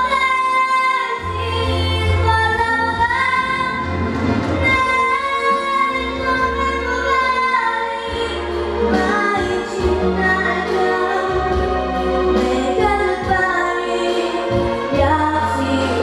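A young girl singing solo into a microphone over an instrumental accompaniment with a deep bass line, holding long sustained notes.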